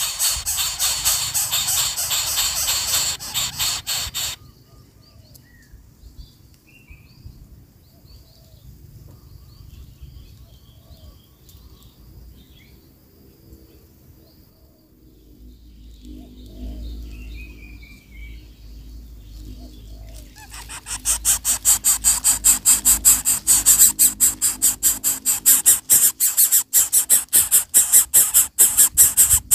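Coucal nestlings begging while being fed: loud, fast, repeated rasping hisses, several a second. They break off about four seconds in, leaving a quieter stretch with faint chirps, then start up again loudly about 21 seconds in.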